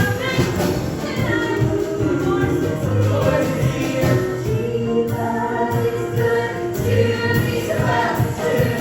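Live stage band playing, with voices singing over a steady beat.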